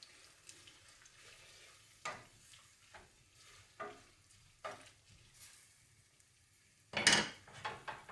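Chopped chard dropping into a hot stainless steel pan, a faint sizzle underneath with short sharp sounds as the greens land, about one a second, then a louder cluster of them near the end.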